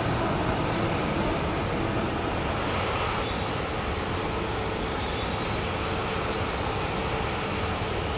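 Airbus A380-800's Rolls-Royce Trent 900 jet engines running at low taxi thrust: a steady, even roar, with a faint steady whine coming in about five seconds in.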